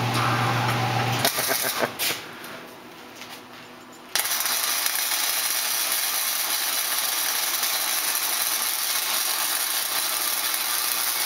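Flux-core wire-feed welder arc-welding thick steel angle iron: a steady, dense crackling hiss that starts abruptly about four seconds in and holds even to the end. Before it there is a steady low hum, a few clicks and a quieter pause.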